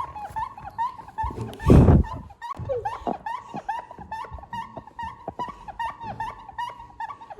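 Rapid run of short, high squeaks, about three a second, with one loud burst of noise about two seconds in.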